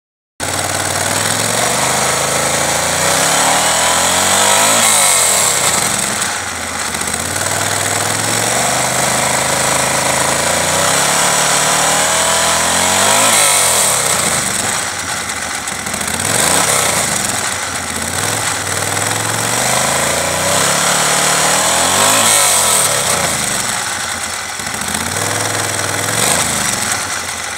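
2013 Moto Guzzi Griso's transverse V-twin running through its stock exhaust, idling with a lumpy beat and revved up and back down several times.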